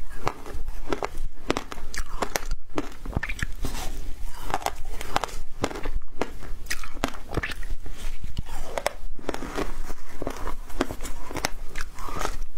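Frozen passion-fruit ice being bitten and chewed close to the microphone: a continuous run of sharp, irregular crunches.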